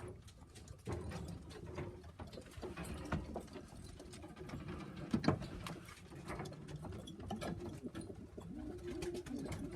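Racing pigeons cooing inside a loft, low repeated calls, with scattered sharp clicks and taps of the birds moving about.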